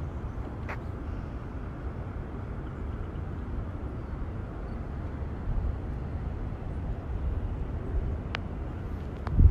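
Steady low outdoor rumble with no distinct source, broken by a few faint clicks near the end.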